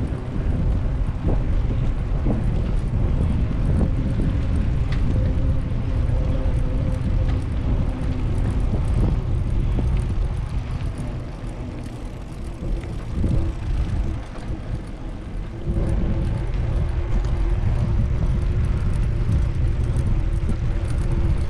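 Wind rumbling across the microphone of a camera on a moving bicycle, with tyres rolling on a concrete path: a steady low rumble with a faint hum, easing for a few seconds past the middle and coming back abruptly.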